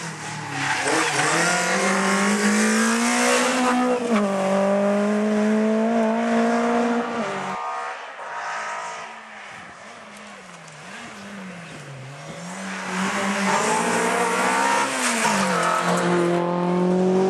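Rally car engines at full throttle, each pitch climbing and then dropping abruptly at a gear change. In a quieter middle stretch the revs swing up and down several times, then a car comes through loud again with another gear change.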